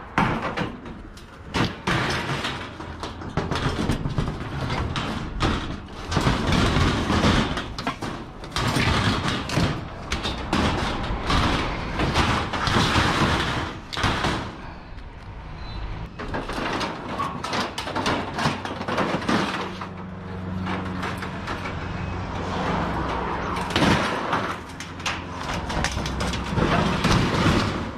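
Scrap metal being handled and loaded: irregular clanks, bangs and scraping in repeated bursts, with a low steady hum underneath from about two-thirds of the way through.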